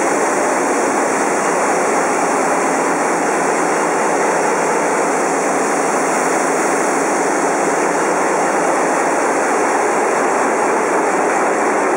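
Large marine diesel engines running in a ship's engine room: a loud, steady mechanical din with no change.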